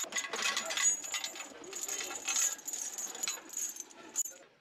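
Steel lifting chain rattling and clinking as it is gathered by hand, link against link and against the metal of the cylinder head. It stops about four seconds in.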